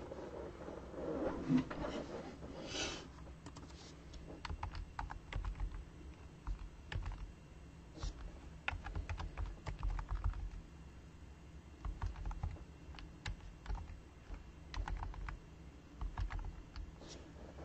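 Typing on a computer keyboard: irregular runs of key clicks that stop and start. A rustle and a bump come before the typing in the first few seconds.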